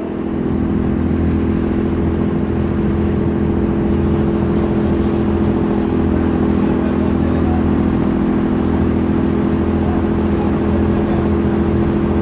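A heavy diesel engine running steadily, a constant deep drone that steps up in level about half a second in.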